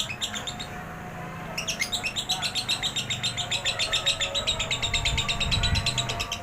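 Lovebird singing its long chattering 'ngekek' song: a few short chirps, then from about a second and a half in a fast, unbroken run of high chirps, about eight a second.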